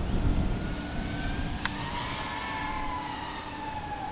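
Motor whine of a 5-inch FPV quadcopter (iFlight Nazgul) in flight, a few tones sliding slowly down and back up as the throttle changes, over low wind rumble on the microphone. A single sharp click comes about a second and a half in.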